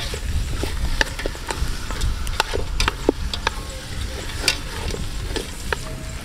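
Chicken pieces stir-fried in a pot, sizzling steadily while a utensil scrapes and clacks irregularly against the pot.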